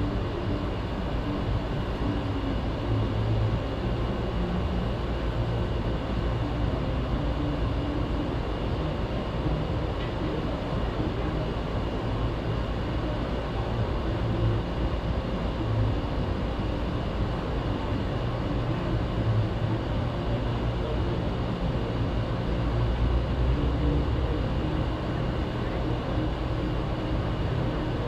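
Commercial air-conditioning condensing units running steadily, including a Lennox unit that has just started: a continuous compressor and fan hum with a few faint steady tones over it.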